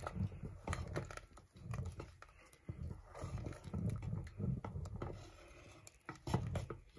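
Wooden spoon stirring thick mungunzá, hominy corn cooked in milk, in a metal pot: soft, low stirring strokes in a steady rhythm, about two a second, with a few light clicks of the spoon against the pot.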